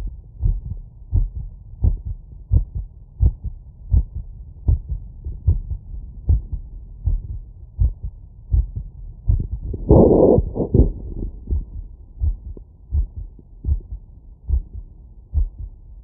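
Human heartbeat heard through a stethoscope after exercise, a steady run of low thumps a little more than once a second, with nothing above about 1 kHz. About ten seconds in, a brief louder rush of noise covers the beats.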